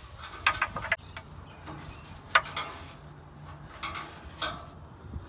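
Plastic oil drain plug being pushed into and turned in a 2018 Ford F-150 Raptor's plastic oil pan: a few light clicks and taps, one sharp click a little over two seconds in, and two more near the end as it seats.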